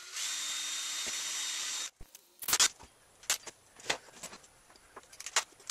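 Cordless drill boring a hole through a fan's black support post, running steadily for about two seconds and then stopping; a few sharp clicks and knocks follow as the parts are handled.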